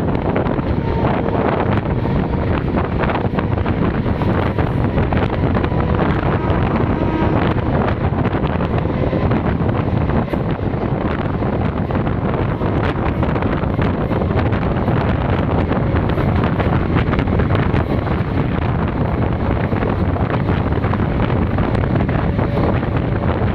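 Steady rush of wind on the microphone from the open door of a moving passenger train, mixed with the train's running noise, with faint clicks scattered through it.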